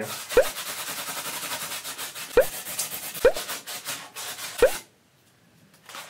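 Block of styrofoam being snapped and crumbled by hand: continuous squeaky rubbing and crunching with four sharp snaps as pieces break off, stopping about five seconds in.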